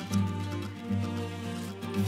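Background music: plucked notes over a held low note.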